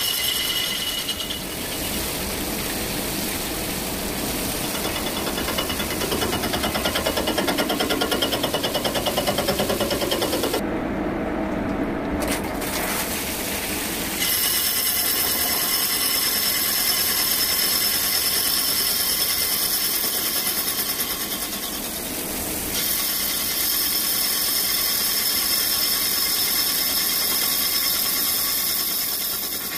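CNC lathe turning a metal part in its chuck under flood coolant: steady machining noise with a high whine and the hiss of coolant spray. The high hiss drops out for a moment about eleven seconds in, and the tone shifts a few times.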